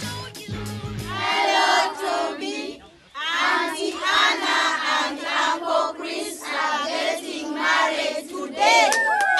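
Music ends about a second in, then a large group of children calls out a greeting together in unison, in two long phrases with a short break about three seconds in.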